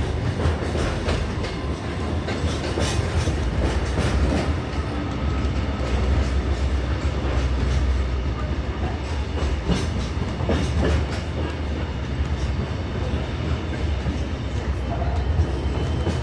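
Kuranda Scenic Railway train rolling along the track, heard from on board: a steady low rumble with irregular clicks and knocks of the wheels over the rails.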